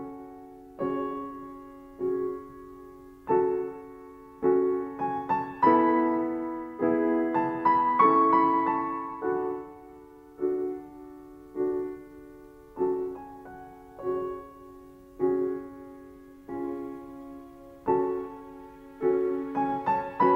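Slow, sombre solo piano music: chords struck roughly once a second, each left to ring and fade before the next.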